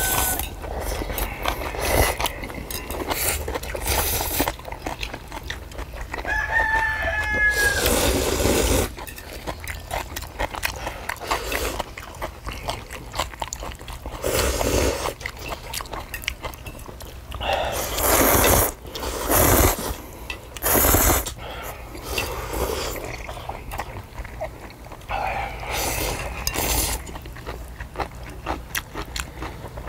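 Ramen noodles slurped loudly in repeated bursts, with chewing between them. A rooster crows once about seven seconds in.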